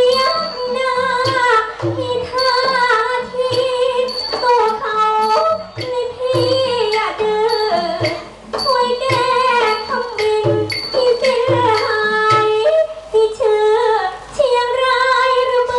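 A woman singing an ornamented likay song through a microphone and PA, her voice sliding and bending between held notes, over instrumental backing with a low drum beat recurring about once a second.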